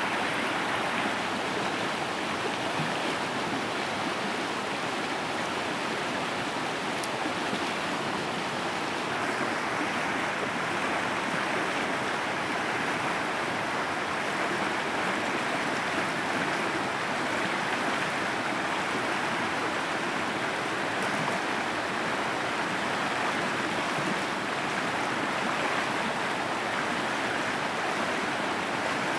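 Swollen, fast-flowing stream rushing steadily, a continuous even rush of water.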